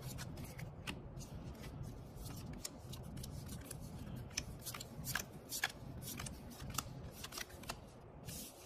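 Magic: The Gathering trading cards being handled and laid down by hand in rows, with irregular crisp card flicks, snaps and slides. A faint low hum runs underneath.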